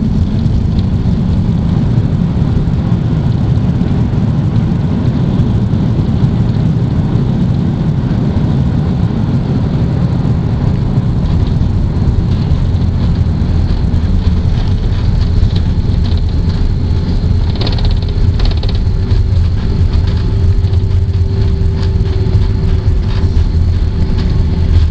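Steady loud rumble of an Airbus A330 heard from inside the passenger cabin, engines and airframe noise with no break; a faint steady hum joins about halfway through.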